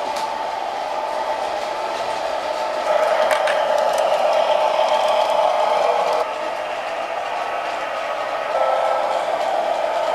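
G-scale model train running on the track: a steady motor hum with wheel noise, louder for a few seconds from about 3 s in, with a few sharp clicks as the wheels cross rail joints, easing off around 6 s and rising again near the end.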